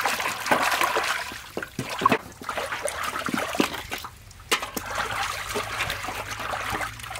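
Water splashing and sloshing as raw chicken drumsticks are rubbed and washed by hand in a metal basin. About four seconds in, the splashing breaks off and quieter water sounds follow.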